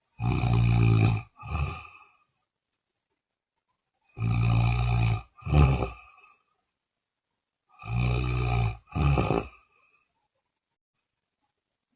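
A person snoring loudly, three times about four seconds apart: each snore lasts about a second and is followed at once by a shorter half-second one, with dead silence between them.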